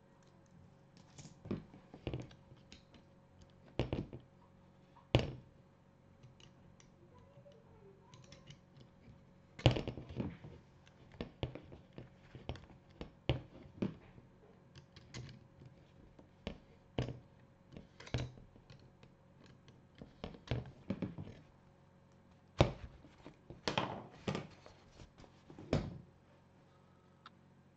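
A plastic embroidery hoop and pins being handled: irregular light clicks and knocks as pins are pulled out and dropped into a plastic pin holder and the felt is unhooped, with a few louder thunks about ten seconds in and again near the end.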